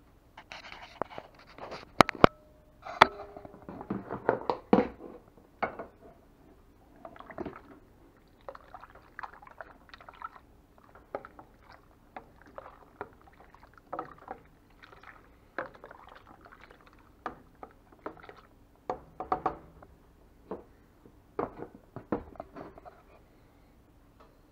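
Wooden spatula stirring hot soapy water in a stainless steel stockpot to dissolve grated Zote soap: liquid sloshing, with irregular knocks and scrapes of the wood against the pot's sides. The sharpest knocks come about two to three seconds in.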